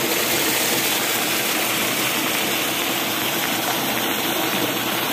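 Muddy rainwater runoff gushing down into an eroded gully: a steady rush of water.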